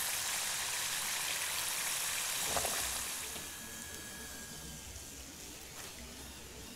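Chicken pieces deep-frying in hot oil, a steady high sizzle that fades after about three seconds as the golden-brown pieces are lifted out with a wire strainer. There is a faint knock about two and a half seconds in.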